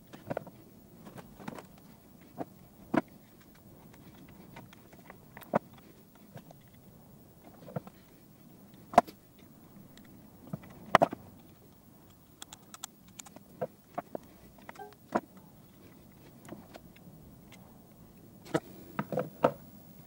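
Scattered light clicks and knocks of hand tools against a small plastic project box, with a quick flurry of them near the end, as wires are soldered onto its toggle switches.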